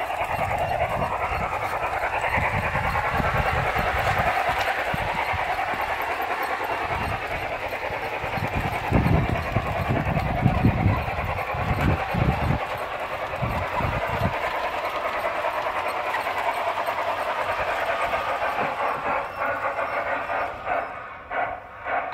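Battery-powered LGB G-scale Mogul model steam locomotive running along the track with a steady running sound, with some low thumps about halfway through and evenly spaced clicks near the end.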